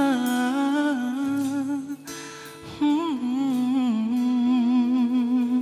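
Male singer humming the melody without words in long, wavering held notes over soft acoustic guitar accompaniment, with a short break about two seconds in.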